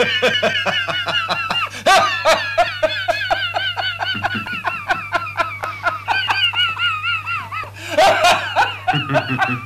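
A long, high-pitched cackling laugh in rapid pulses, several a second, with a brief break near the end. A steady low hum sits underneath.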